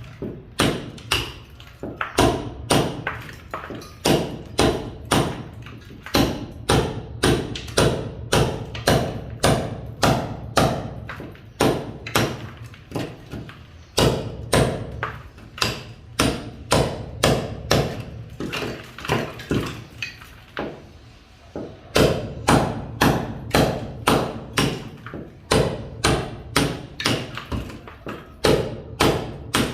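Construction noise: heavy knocks struck over and over, about two a second, with a short pause about two-thirds of the way through.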